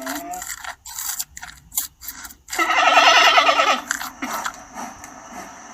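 Giant panda sounds: a run of short sharp chomping clicks, then about two and a half seconds in a loud, pitched bleating call lasting about a second.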